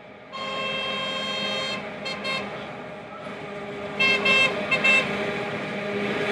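Horn of the diesel-converted Manx Electric Railway locomotive No. 34 'Maria': one long blast, two quick toots, then about four short toots. Underneath, the locomotive's diesel engine runs and grows louder as it draws near.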